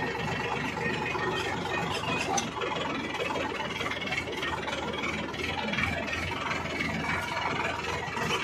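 Farm tractor's diesel engine running steadily while the tractor drives along a dirt track, heard close up from the driver's seat, with a low throb that pulses in the second half.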